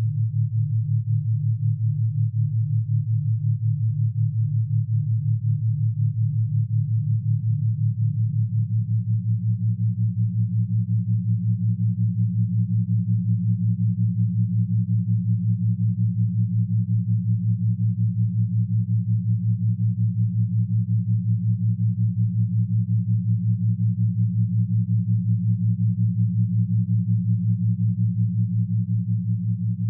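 Two low, pure electronic tones held together with a fast, even pulsing. About nine seconds in the upper tone steps up a little. This is a meditation tone track meant for 'third eye' activation.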